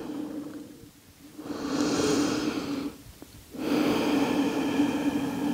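A woman breathing deeply through the nose: one breath in of about a second and a half, a short pause, then a long breath out.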